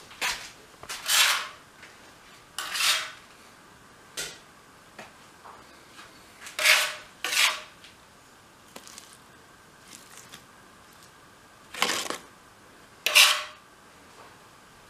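A kitchen utensil scraping and clattering against a dish in several separate short strokes, spaced irregularly, while working a soft cake filling; the loudest come near the end.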